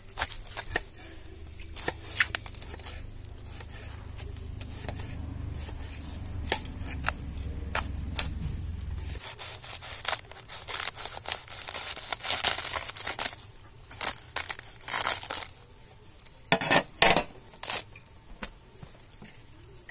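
A large knife cutting a whole raw cabbage in half on a steel plate: crisp crunching and tearing as the blade goes through the leaves, then a few sharp knocks of the blade on the plate near the end. Under the first half runs a low steady hum that stops abruptly.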